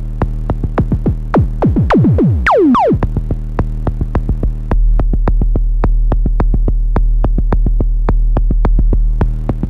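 Moog DFAM analog percussion synthesizer playing a fast sequenced pattern of sharp clicky hits over a steady low drone. From about a second and a half in, the notes sweep steeply down in pitch; from about five seconds in the low bass is louder.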